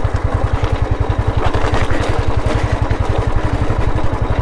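Royal Enfield Classic 350's single-cylinder engine running at low revs with a steady, even beat while the bike is ridden over loose river stones, a rough clatter under it.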